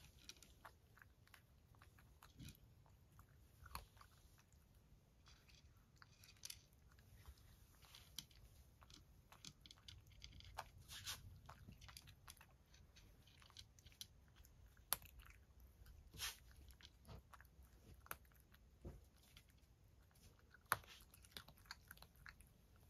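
A cat eating dry kibble from a wooden dish: faint, irregular crunches and clicks as it bites and chews the pellets.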